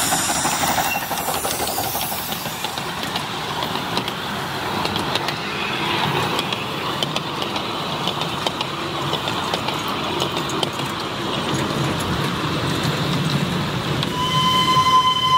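Miniature 10¼ in gauge steam train running past with its passenger coaches: a steady running rumble with frequent clicks of the wheels on the track. About a second before the end, a steady whistle starts.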